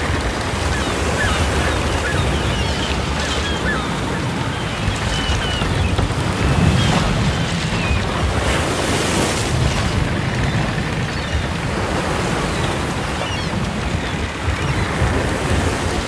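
Ocean surf washing onto a beach in a continuous rush, with waves breaking more heavily around seven and nine seconds in. Small, short bird chirps are scattered over the surf.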